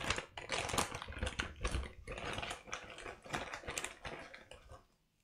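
Plastic snack bag crinkling and crackling as it is opened and handled, a dense run of sharp crackles that stops abruptly near the end.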